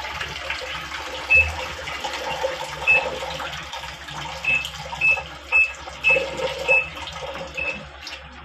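Water running steadily in a Midea 6.5 kg washing machine, which is filling but won't start its wash, the water overflowing out through the pipe. About eight short high beeps come at irregular intervals over it.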